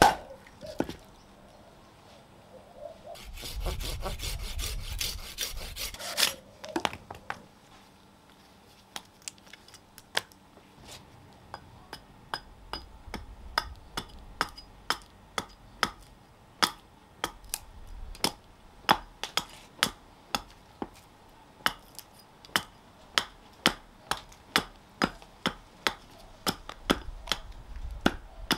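A hatchet hewing a split nectarine billet on a wooden chopping block: a steady run of sharp chopping knocks, about two a second, that grow louder toward the end. It opens with a single loud splitting blow, and a few seconds of rapid rasping noise come early on.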